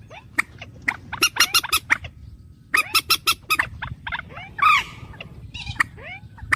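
Bird calls: runs of quick, sharp, repeated notes with short pauses between them, and one louder, longer call a little past the middle.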